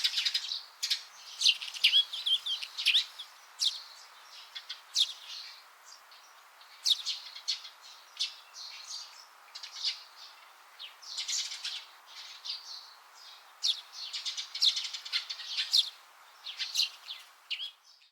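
Small birds chirping: many short, high calls, some overlapping, over a faint steady background hiss.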